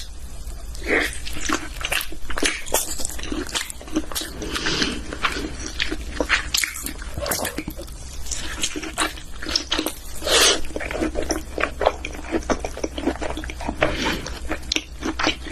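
Close-miked chewing of thick boiled octopus: a dense run of wet smacks, squelches and clicks of the mouth, over a steady low hum.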